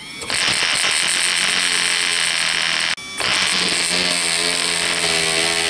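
Handheld electric starter spinning a small model engine in two long bursts of about three seconds each, with a brief break between. The engine turns over but does not catch, which the owner puts down to it not getting enough fuel without its rear tank.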